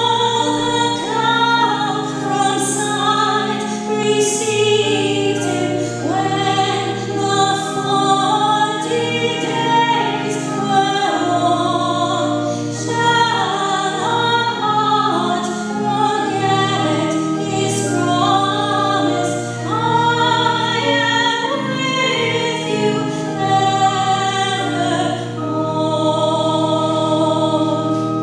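Choir singing a hymn over long, held low notes: the entrance hymn sung before the opening of the Mass.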